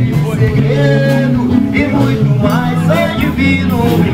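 Live band playing: electric guitars, bass and drums, with a man singing.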